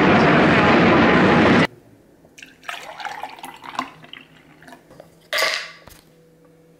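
A loud, steady arena din cuts off abruptly about one and a half seconds in. Then comes the quieter, uneven trickle of milk being poured into a glass, and a short, louder sound near the end.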